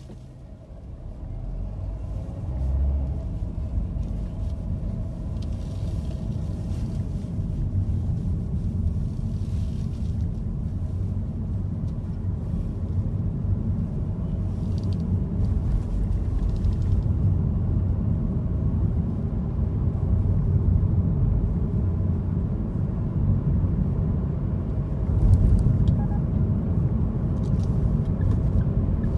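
Car cabin noise while driving: a low engine and road rumble that swells as the car pulls away about a second in, then stays steady.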